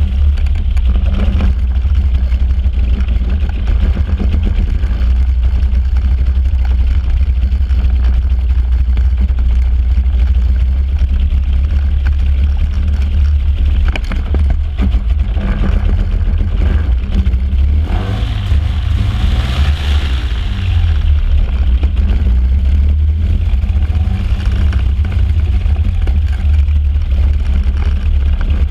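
Flex-wing microlight trike's engine and pusher propeller running at taxi power, with a brief rev up and back down about two-thirds of the way through. The engine is running rough, missing at part throttle.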